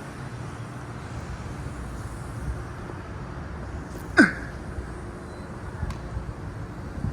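Car running with steady low engine and road rumble. About four seconds in comes a single short, sharp squeal that falls quickly in pitch.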